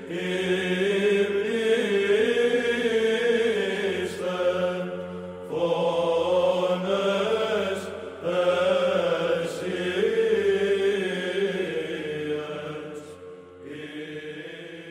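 Background Byzantine chant: slow, sustained sung phrases over a steady held drone, with short breaks between phrases and a softer passage near the end.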